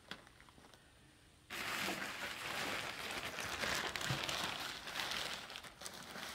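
Fabric stuff bag and plastic wrapping rustling and crinkling as the bag is pulled over a packed paraglider ground-handling wing, starting suddenly about a second and a half in.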